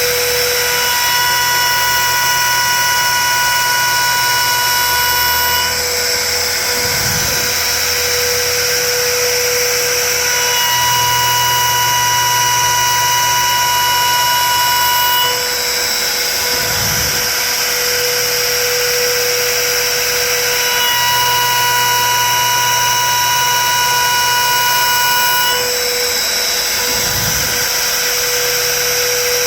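Hobby CNC machine running a job: a steady high whine with overtones and a low motor hum, changing character every few seconds. The pattern repeats about every ten seconds, with a brief low swoop three times as the machine moves between passes.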